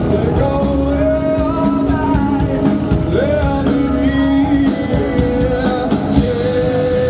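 Live rock band playing with a lead vocal, held and sliding sung notes over guitar, bass and drums.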